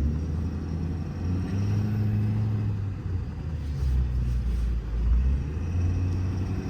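Ford F550's 6.7 Power Stroke V8 turbo-diesel and road noise heard from inside the cab while driving: a low rumble whose pitch steps up and down a few times.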